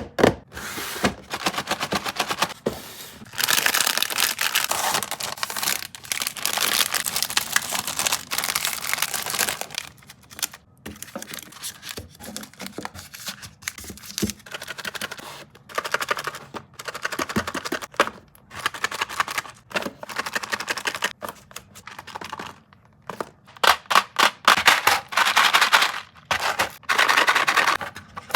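Packaged sweets and snacks being handled and arranged: plastic wrappers crinkle and packets click and tap as they are set in place. The sound comes in bursts of rapid crackling and clicking with short pauses between them.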